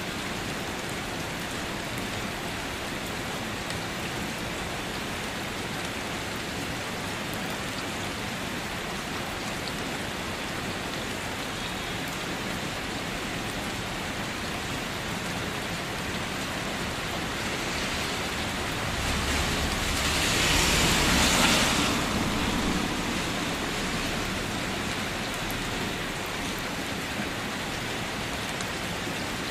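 Steady rain falling, an even hiss of many drops. About two-thirds of the way through it swells louder for a few seconds, with a low rumble underneath, then settles back.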